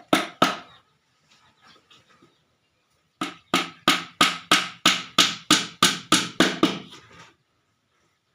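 Hammer striking wood: three quick blows at the start, then after a pause a steady run of about a dozen blows, roughly three a second.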